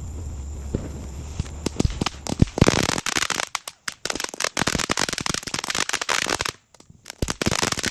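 Firecrackers going off: a few separate pops, then a long rapid crackling string of bangs that breaks off briefly near the end and starts again.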